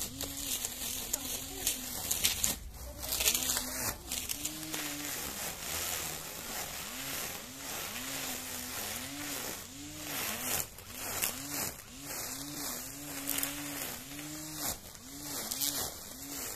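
Laxton battery-powered grass trimmer cutting grass: the electric motor's whine rises and dips again and again, about twice a second, as the spinning head works through the lawn. Crackling swishes of grass and leaves being struck run over it and are loudest in the first few seconds.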